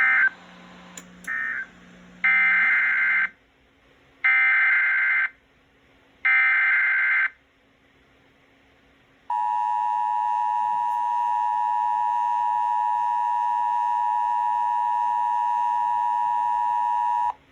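Emergency Alert System tones relayed over a radio broadcast. Two short data chirps come first, then three one-second bursts of the SAME digital header, a warbling modem-like squeal, a second apart. About nine seconds in, the steady two-tone attention signal starts and holds for about eight seconds, announcing the special marine warning that follows.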